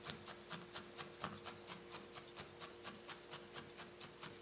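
Felting needle stabbing repeatedly into wool, a steady run of faint soft ticks at about five pokes a second.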